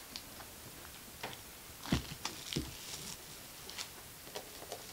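Cardboard box of trading cards being pulled and torn open by hand: scattered crinkles, scrapes and small taps, loudest about two seconds in.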